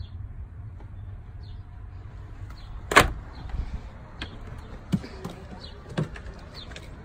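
Rear side door of a stretch limo unlatching with one sharp clunk about three seconds in as it is opened, followed by a few softer knocks.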